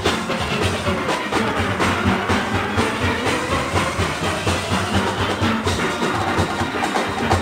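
A steel orchestra playing: massed steelpans carrying the tune over a driving rhythm of drums and percussion.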